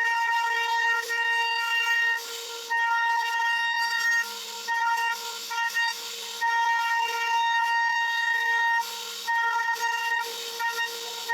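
CNC router spindle giving a steady high-pitched whine that holds one pitch. The whine breaks off briefly every second or so, with a short hiss in the breaks.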